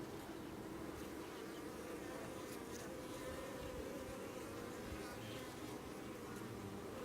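Many honey bees buzzing steadily around an opened hive, a faint hum that wavers slightly in pitch.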